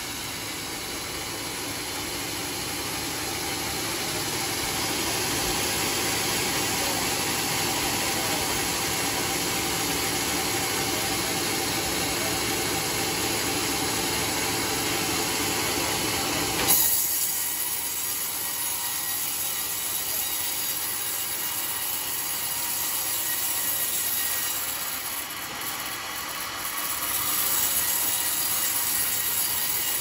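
Band sawmill's blade running and cutting lengthwise through a coconut-palm (glugu) log: a steady mechanical rushing noise. About halfway through the sound changes abruptly, with a brief loud spike, then goes on thinner and brighter.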